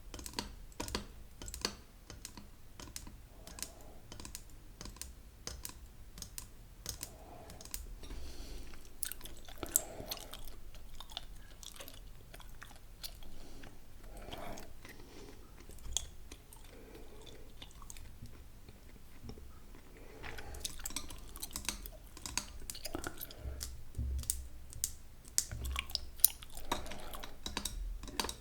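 Close-miked gum chewing: irregular wet clicks and smacks of the mouth, several a second.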